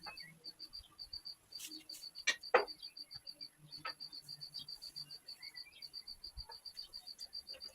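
An insect chirping steadily, with short high chirps at about six a second. Two sharp clicks come a little over two seconds in.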